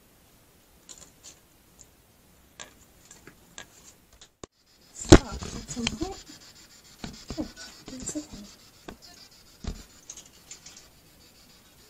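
Handling noise from gear being unpacked and set up: scattered clicks and rubbing, a sharp knock about five seconds in, then a couple of seconds of rustling and bumping, and another knock near the end.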